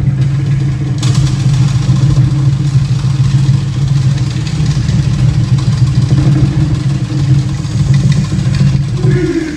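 Polynesian show drums played in a fast, continuous roll, a loud low rumble that cuts off suddenly near the end.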